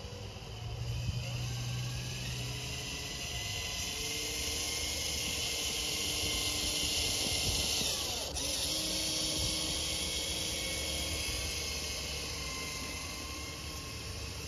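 Twin electric motors and gearboxes of a Tamiya Clodbuster RC monster truck whining as it drives through snow. The whine builds as the truck approaches, is loudest as it passes about eight seconds in, then eases off. A single sharp click comes just as it passes.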